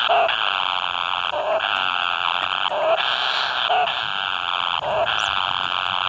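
Kingfisher nestlings giving harsh, buzzy begging calls: repeated calls about a second long with brief breaks between them, and a short lower note in some of the gaps.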